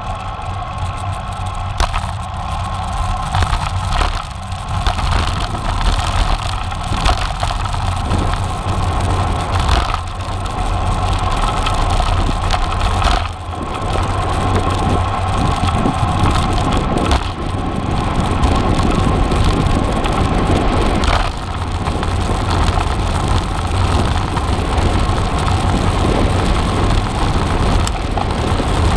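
Wind buffeting the microphone over the tyre and road noise of a cross bike being ridden on a paved road, with occasional knocks from bumps.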